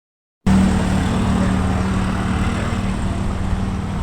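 An engine running steadily with a low hum and rumble, cutting in abruptly about half a second in.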